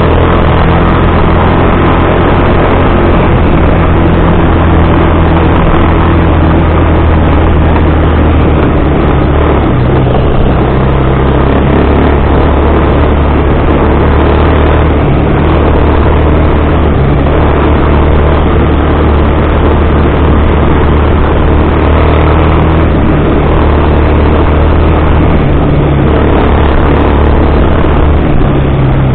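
Bashan 250 quad's 250 cc single-cylinder four-stroke engine running while riding, its note rising and falling a little with the throttle.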